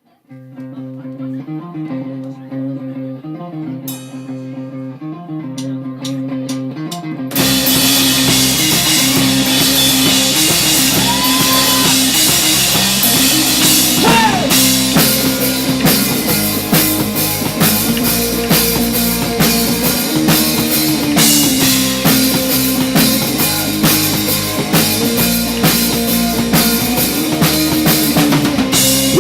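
Rock band playing a song's instrumental intro: a guitar riff on its own with a few drum hits, then the full band with drums comes in loudly about seven seconds in and drives on.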